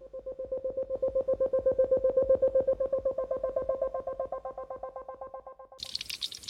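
Rapid electronic beeping, about ten short pulses a second on one tone, the pitch rising slightly after about three seconds. Near the end the beeping gives way to a burst of crackling hiss.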